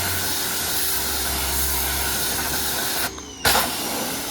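Pressure washer spraying water onto a truck: a steady loud hiss of the jet over the machine's low hum. About three seconds in the spray breaks off briefly, then comes back with a sudden burst.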